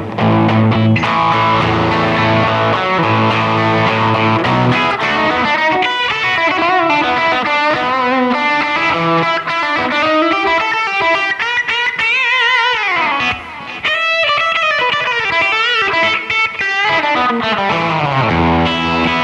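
1971 Gibson Les Paul Custom electric guitar played through an amp with a light crunch, overdriven tone. It rings out chords for the first few seconds, moves to single-note lead lines with string bends and vibrato, then returns to chords near the end.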